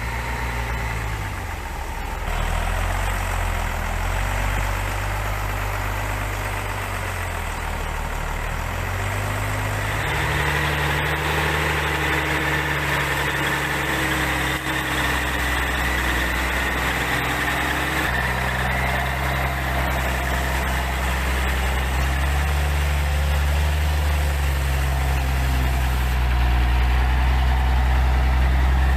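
The engine of a homemade open-frame logging truck, loaded with logs, running steadily as it crawls along a muddy forest track. Its engine speed shifts a few times, and a steady whine joins about a third of the way in.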